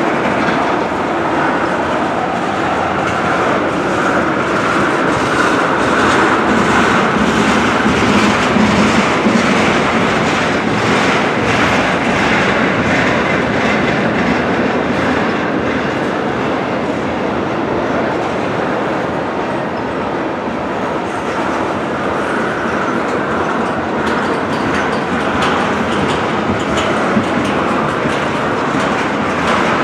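Loaded tank cars of a freight train rolling past at close range: a steady rumble of steel wheels on rail, with irregular clicks from the wheels going over the track.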